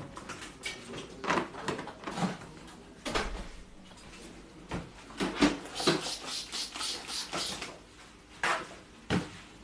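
A stainless steel exam table being wiped down with paper towel: a series of short swishes and light knocks on the metal top, thickest in the middle of the stretch.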